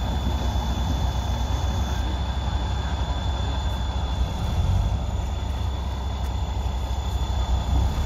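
Heavy diesel machinery, a tipped dump truck and a bulldozer, running with a low, steady rumble, plus a faint steady high whine.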